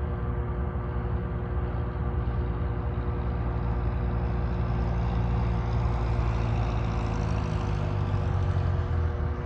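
Aircraft engine running. It grows louder and brighter over several seconds, as a plane passing close by would, then drops off near the end.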